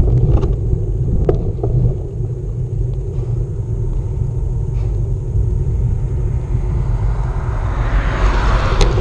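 Wind buffeting the microphone of an action camera on a moving bicycle, a steady low rumble with a few clicks. Near the end a rising hiss joins in as the tyres roll off the asphalt onto the gravel shoulder.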